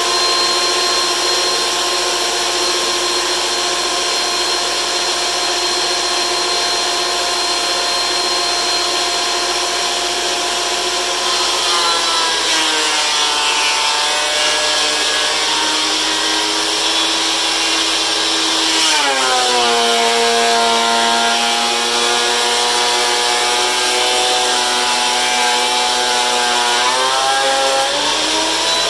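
DeWalt benchtop thickness planer running with a steady motor whine. About twelve seconds in, the pitch sags as a board feeds through the cutterhead. About seven seconds later it drops sharply under a heavier cut, then rises back near the end as the board clears the knives.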